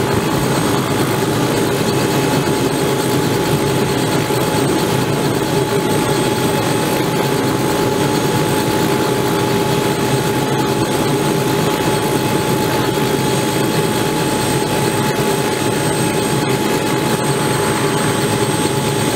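Robinson R66 helicopter running on the ground, its Rolls-Royce RR300 turboshaft engine turning the main rotor. The sound is steady: a constant turbine whine over the rotor's noise.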